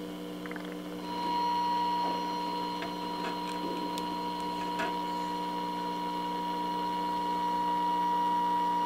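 Tube radio's speaker playing a steady high test tone, the modulation on a 455 kHz IF signal, switching on about a second in over a steady hum, with a few faint clicks. The radio's IF stages are picking up and passing the injected alignment signal.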